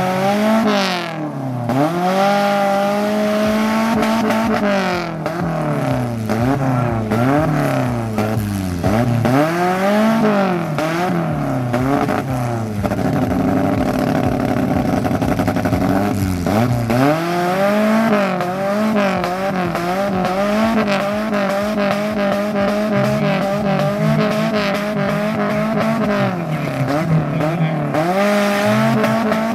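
Modified off-road jeep's engine revved hard again and again, its pitch climbing and dropping about once a second and held high for a couple of seconds near the middle. The wheels are spinning in deep mud: the jeep is bogged and fighting for traction.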